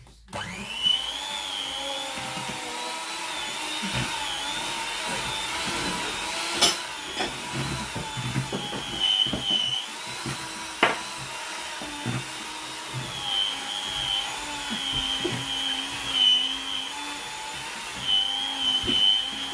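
Electric hand mixer switched on and running, its twin beaters whisking thick chocolate batter in a plastic bowl: a steady motor whine that wavers slightly in pitch, with a few sharp knocks.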